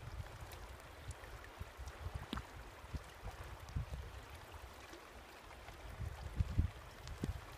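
River water lapping and gurgling against a rock at the waterline, with irregular soft low thumps, the strongest a little after six seconds in.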